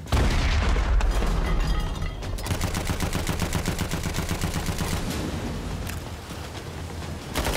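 A submarine's 3-inch deck gun fires one heavy shot, with a low boom that lingers for a couple of seconds. Then rapid, steady machine-gun fire follows, many shots a second.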